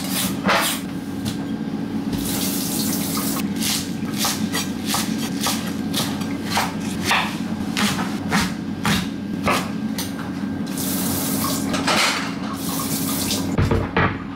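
Kitchen knife chopping green onions on a wooden cutting board: a string of irregular knocks on the board, with a dull blade. A kitchen tap runs into the sink in two short spells, about two seconds in and again near eleven seconds.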